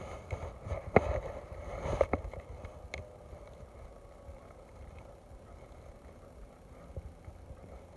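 Fishing tackle being worked after a flip cast with a baitcasting rod: one sharp click about a second in and two fainter clicks after it, then a faint low rumble.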